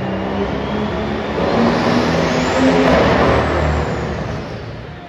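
Competition pulling tractor's engine revving, building to a loud peak about three seconds in, then backing off near the end.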